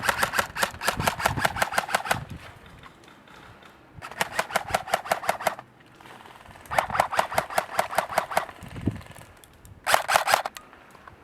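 Airsoft rifle firing on full auto in four bursts, the shots coming at about ten a second as sharp clicking cracks. The first burst is already running as the sound begins and lasts about two seconds; the others come about four, about seven and about ten seconds in, the last one short.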